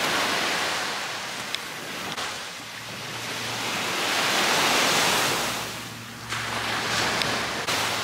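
Small sea waves breaking and washing up a sandy beach, the surf swelling and fading twice.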